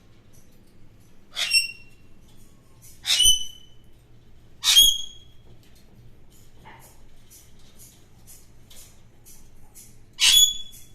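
Alexandrine parakeet giving four loud, short, harsh screeches, three in quick succession and one near the end, with faint clicking in the pause between them.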